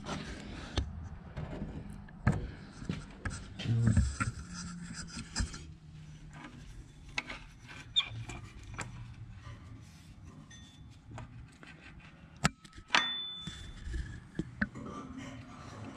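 Irregular clicks, knocks and scraping of hand tools and metal parts being handled during repair work on a backhoe engine, with two sharp knocks close together near the end.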